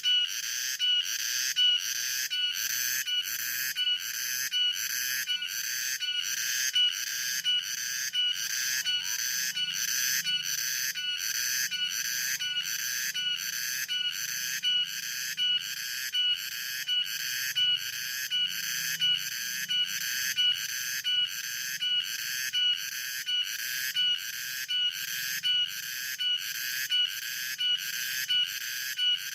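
Cicadas singing: a loud, high-pitched buzzing call that pulses evenly, about three pulses every two seconds, with a ringing tone in each pulse.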